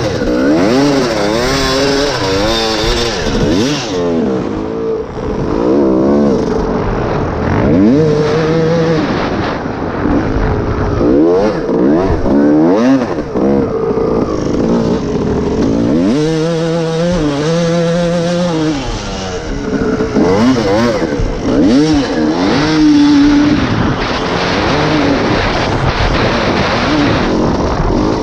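Motocross bike engine heard from the rider's helmet, revving up and down again and again as the rider accelerates, shifts and backs off, its pitch climbing and dropping every second or two. Wind rush runs under it.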